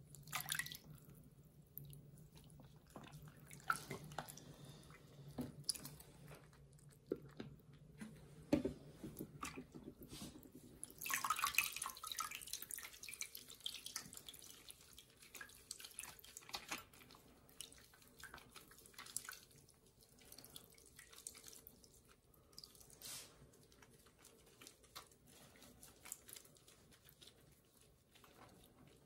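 Faint water splashing and dripping in a bathroom sink as a kitten is washed by hand and lifted dripping out of the water. Small scattered splashes and drips, with a longer burst of splashing about eleven seconds in.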